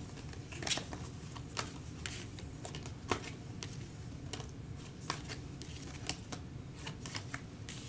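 A deck of tarot cards being shuffled and handled by hand, with soft, irregular flicks and clicks of card against card.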